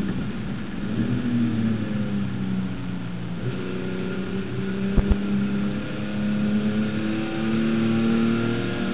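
On-board sound of a Holden HQ race car's straight-six engine under racing load. The note dips about two seconds in as the car slows, then climbs steadily through the second half as it accelerates. A single sharp thump comes about five seconds in.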